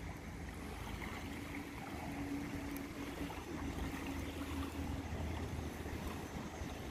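Steady low outdoor rumble by open water, with a faint engine-like hum that runs for a few seconds in the middle.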